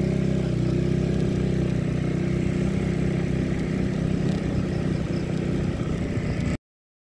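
Motorcycle engine running at a steady speed while riding, heard close to the microphone; the sound cuts off suddenly near the end.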